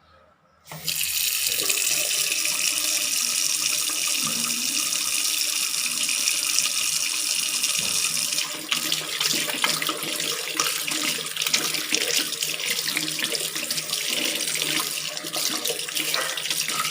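A water tap is turned on about a second in, and water runs from it in a steady hiss. About halfway through, the flow turns rougher and more uneven.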